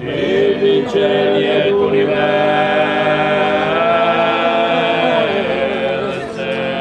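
A Sardinian folk choir singing unaccompanied in close harmony, the voices holding long notes. About four to five seconds in the upper voice bends and the chord eases slightly.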